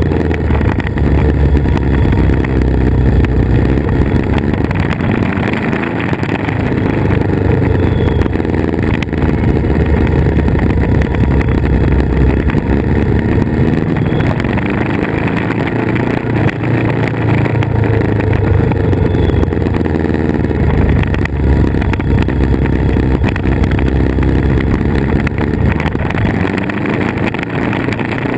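Motorcycle engine running while riding at a steady pace, with wind rushing over a camera mounted on the moving bike.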